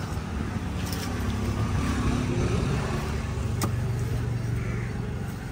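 Motor vehicle engine running, growing louder partway through and then holding a steady hum, with a single sharp knock about three and a half seconds in.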